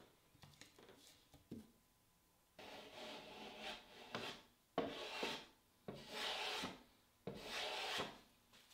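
Small hand plane shaving the sawn edge of a solid walnut case, four scraping passes with sharp starts, the first one longest. A few light knocks come before the planing starts.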